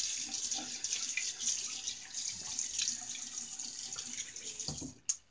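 Water running from a tap into a bathroom sink, a steady splashing hiss that stops near the end as the tap is shut off.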